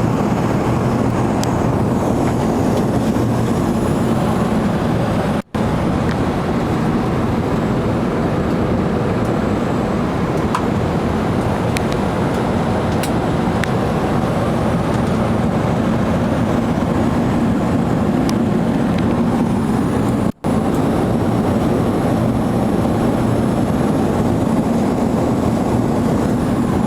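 Steady cabin noise inside an Airbus A380 airliner in flight: a constant low rush of engine and airflow noise. The sound cuts out for an instant twice, about five seconds in and about twenty seconds in.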